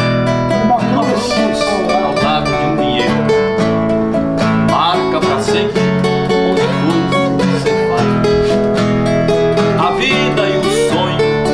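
Two nylon-string acoustic guitars playing a sertanejo moda together, a picked melody over steady chords.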